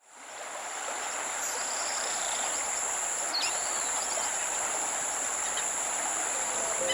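Forest insects, crickets or cicadas, shrilling in two steady high tones over an even background hiss, fading in at the start. A brief bird call cuts through about halfway.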